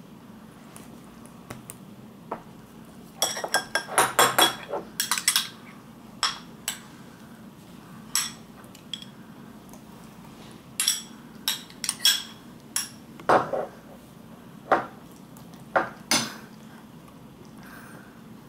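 Metal cutlery clinking against dishes in sharp, ringing clinks. A quick flurry comes about three to five seconds in, then single clinks follow every second or two.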